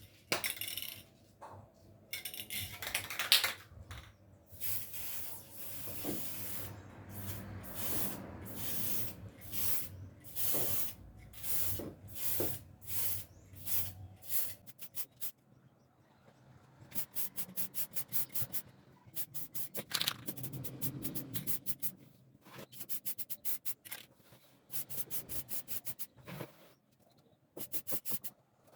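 Repeated rubbing or scraping strokes of a hand tool or abrasive on wood. The strokes are slower through the first half and come faster, in quick runs, from a little past halfway.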